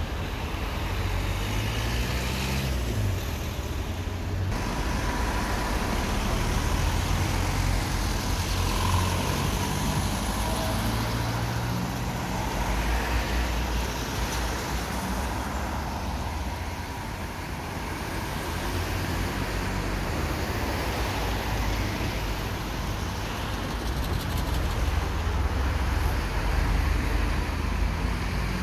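Road traffic on a wet city street: cars and vans running and passing, a steady low engine rumble under tyre and road noise.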